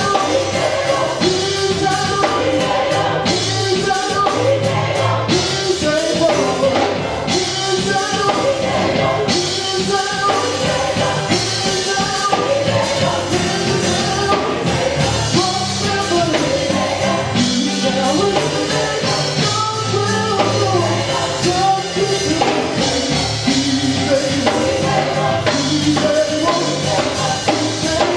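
Gospel praise team of men and women singing together into microphones, with instrumental accompaniment of bass and drums underneath.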